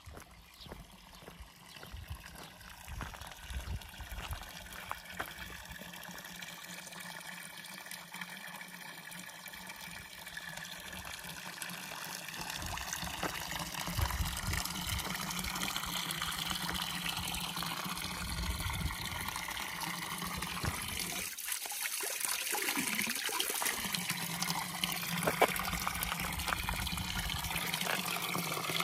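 Running water, a steady rushing that grows gradually louder.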